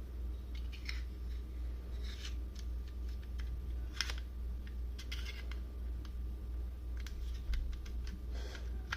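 Small metal clicks and scrapes of an Arrow T50 staple gun being handled while its staple magazine is worked open and loaded, with one sharper click about four seconds in. A steady low hum runs underneath.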